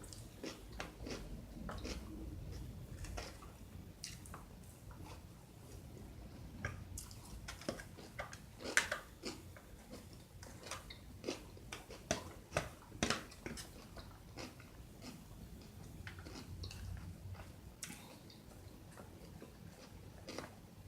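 A person chewing and biting food close to the microphone, with irregular crisp crunches and wet mouth clicks, thickest in the middle of the stretch.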